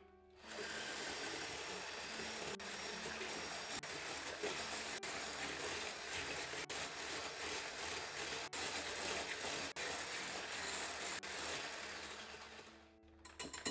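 A steady, even mechanical noise that starts about half a second in and stops near the end, over faint background music.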